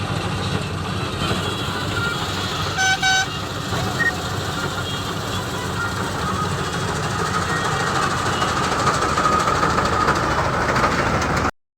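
Heavy harvesting machinery running steadily, with a deep engine drone. A horn gives two short toots about three seconds in. The sound cuts off abruptly near the end.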